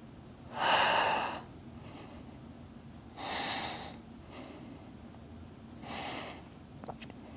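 A woman breathing out hard three times, a couple of seconds apart, each breath about a second long and the first the loudest. It is one effortful exhale for each leg lift in a kneeling leg-circle exercise.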